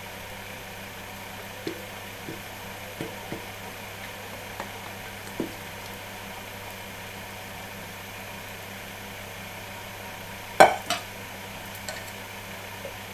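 A silicone spatula scrapes meringue out of a stainless-steel mixing bowl into a steel bowl of cheese batter, with a scattering of light taps against the bowls, then a loud double clank of the steel bowls about ten and a half seconds in. A steady low hum runs underneath.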